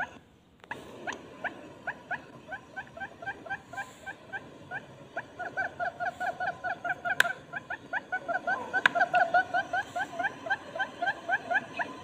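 Barred buttonquail calls: a long series of short, sharply rising notes repeating several times a second, becoming denser and louder in the second half, after a brief dropout right at the start.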